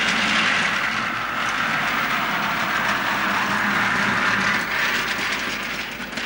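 Wooden toy train cars rolling and rattling along a wooden track as a child pushes a long train by hand, a steady clattering.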